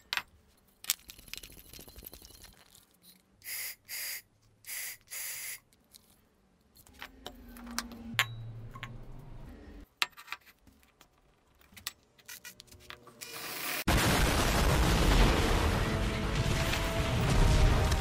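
Clicks and knocks of a metal gas canister being handled and set down on a wooden bench, with four short hissing bursts. About fourteen seconds in, a loud film explosion with dramatic music cuts in suddenly.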